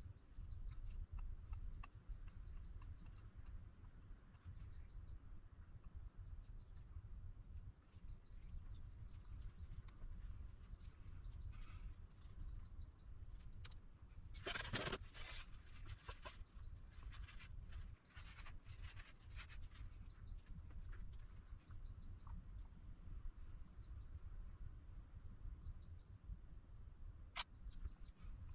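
Faint high chirping from a small bird, in short quick runs of notes about every second or two, over a low steady hum. About halfway through there is a brief rattling clatter.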